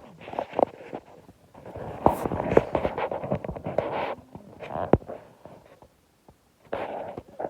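Domestic cat snoring loudly in her sleep: rough, crackly breaths of uneven length, one long one in the middle, with short pauses between.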